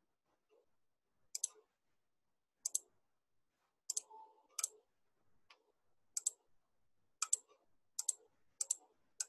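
Computer mouse clicks: a series of sharp clicks, many heard as quick press-and-release pairs, coming irregularly about once a second.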